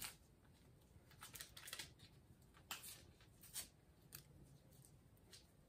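Faint rustling and a few light crackles and clicks of a small paper sugar packet being handled and emptied into a mug, scattered through near silence.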